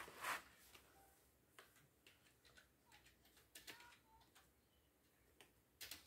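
Faint, irregular clicks and taps of plastic Lego pieces being handled and fitted together, the loudest just at the start.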